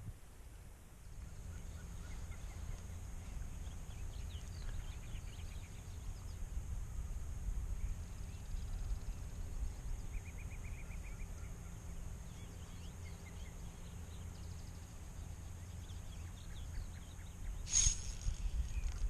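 Outdoor riverside ambience: a steady low rumble with scattered small bird chirps and a short trill of repeated notes, and one sharp knock near the end.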